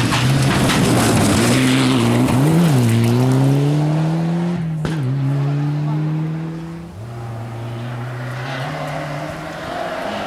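Mitsubishi Lancer Evolution rally car's turbocharged four-cylinder engine at full throttle on gravel, revving up and shifting up twice as it passes, with gravel noise under it. Near the end a second rally car's engine is heard approaching.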